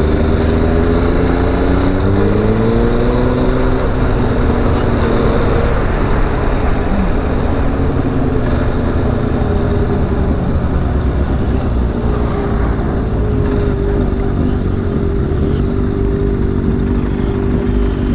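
Motorcycle engine under way with wind rushing over the microphone. It rises in pitch over the first few seconds as it accelerates, then settles to a steady cruising note in the second half.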